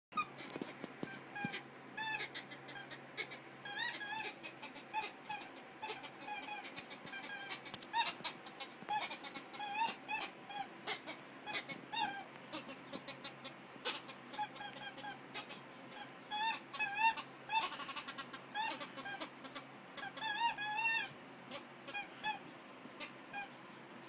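Rubber squeaky dog toy squeezed over and over by a labradoodle puppy's chewing. Many short squeaks wobble up and down in pitch, with small clicks in between, and come fastest and loudest in quick runs near the end.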